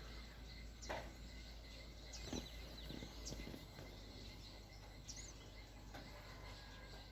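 Faint outdoor background hiss with a few short, high bird chirps scattered through it, and a couple of soft clicks.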